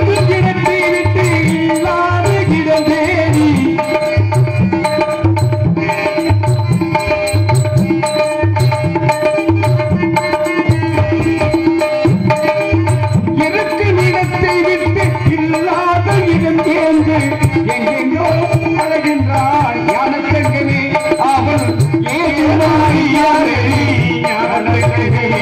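Live accompaniment for a Tamil street drama: a double-headed barrel drum beating a steady rhythm, about one main stroke a second, under a held drone and a wavering melody.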